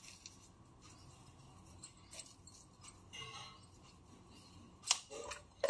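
Quiet room tone while salt is spooned from a plastic container over flour in a steel bowl, with one sharp light click of the spoon near the end.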